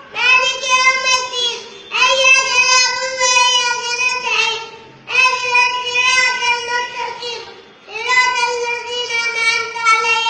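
A young boy chanting Quran recitation aloud in a high, steady voice, as when leading prayer: four long held phrases with short breaths between.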